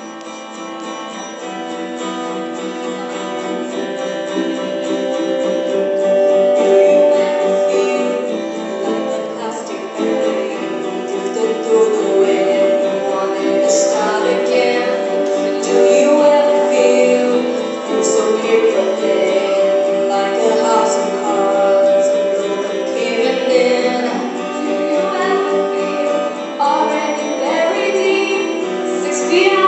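Live band playing a pop song on guitars, with female voices singing the melody; the guitars start alone and the singing comes in about ten seconds in.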